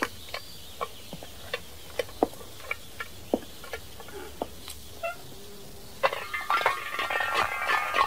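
Lug wrench working the wheel nuts during a tyre change: single sharp metallic clicks and knocks about every half second, then a denser metallic clatter with ringing from about six seconds in.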